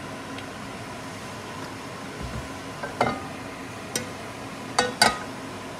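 A nonstick frying pan knocking and clicking against the gas-stove grate as it is shifted by its handle to spread freshly poured oil: four sharp knocks in the second half, the last two the loudest, over a steady background hiss.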